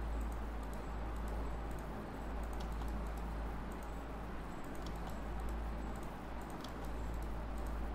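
Scattered faint clicks of a computer mouse and keyboard over a steady low hum.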